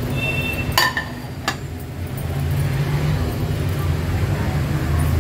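Kitchen sounds at a gas stove: a sharp clink with a brief ring about a second in and a lighter click half a second later, over a steady low rumble.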